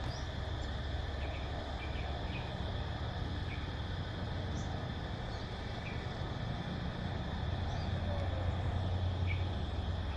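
Steady drone of cicadas with short bird chirps scattered through it, over a low rumble of wind.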